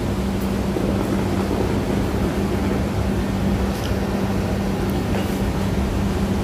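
Steady mechanical hum with an even rushing noise that runs without change.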